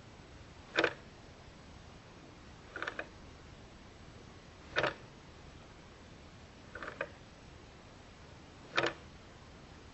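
Clock ticking slowly, about one tick every two seconds, the ticks alternating between a single crisp click and a slightly split double click, over a faint steady hiss.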